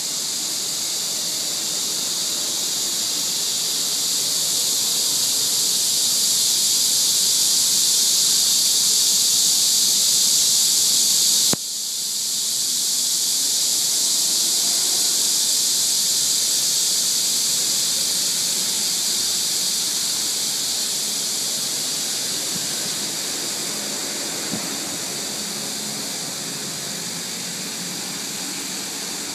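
Chorus of cicadas in the tree canopy: a steady, high-pitched shrill drone. It swells over the first ten seconds, drops suddenly about twelve seconds in, then builds again and slowly fades.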